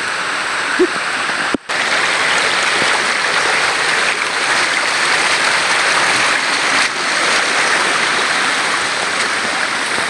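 Loud, steady rushing of a waterfall close by. The sound cuts out for an instant about a second and a half in.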